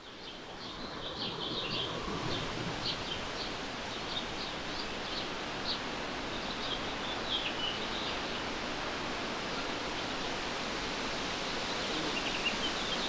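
Outdoor ambience: a steady rushing noise with small birds chirping in short, high calls. It fades in at the start and fades out near the end.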